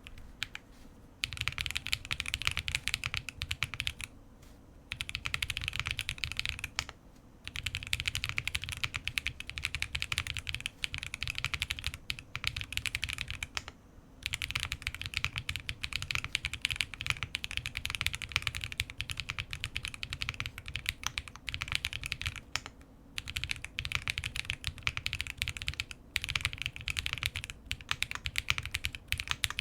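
Typing on a QK65 mechanical keyboard with lubed TTC Holy Panda tactile switches in a POM plate, dense runs of keystrokes with a deep low thock under each clack. The runs last several seconds each, broken by a few brief pauses.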